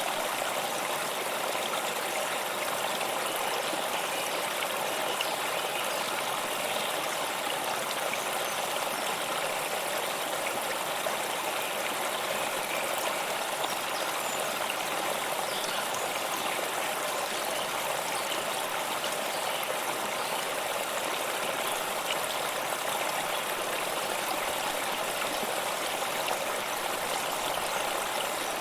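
Waterfall: water falling and splashing in a steady, even rush with no changes.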